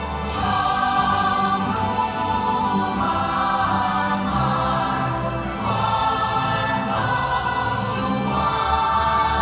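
Musical-theatre cast singing together in chorus over musical accompaniment, in long held notes that change every second or two.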